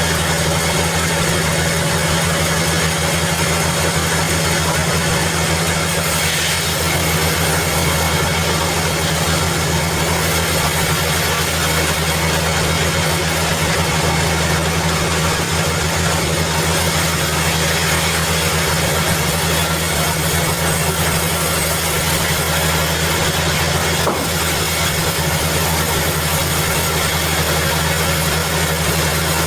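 Sawmill band saw machinery running, a steady low drone that does not change in pitch or level.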